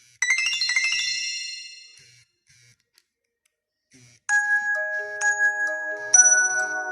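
Nokia 6500 slide ringtones. A quick cascade of bright, bell-like chime notes rings out and fades over about two seconds. About four seconds in, another ringtone begins with a melody of held synthesized notes.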